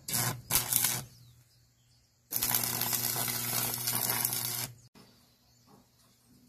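Stick welding arc on steel angle iron: two short crackling bursts in the first second as the arc is struck, then a steady arc crackle for about two and a half seconds that stops suddenly.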